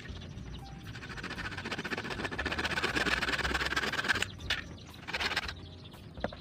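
A rapid rasping scrape builds up over a couple of seconds and stops abruptly about four seconds in, followed by two short scrapes.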